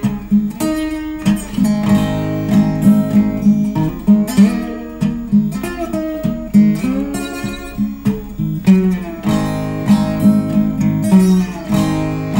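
Resonator guitar played bottleneck style with a slide: plucked blues notes and chords, many of them sliding up and down in pitch.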